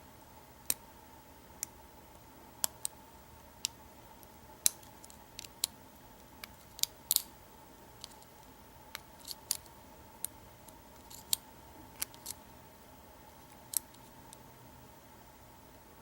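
Steel hook pick clicking against the serrated pin tumblers of an old American 700 series padlock during single pin picking under turning tension. Sharp clicks come at uneven intervals, sometimes in quick pairs, as the pins are lifted and set.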